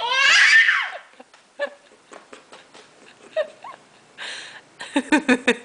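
Baby girl's high squeal, rising in pitch, in the first second, then a breathy huff and a quick run of about six short voiced huffs near the end, like a puppy panting.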